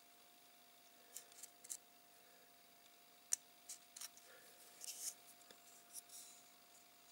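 Hooked hobby-knife blade scraping the edge of a styrene plastic model fuselage in short, faint strokes, with one sharp click a little after three seconds in.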